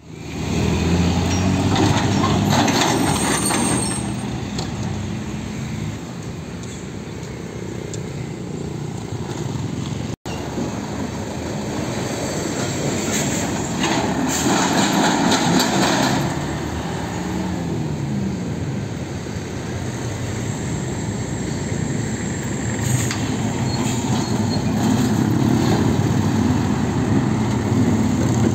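Heavy diesel trucks driving slowly over a rough level railway crossing, their engines running loud and close, with motorcycles passing between them. The engine pitch rises and falls several times as the trucks pull across the rails.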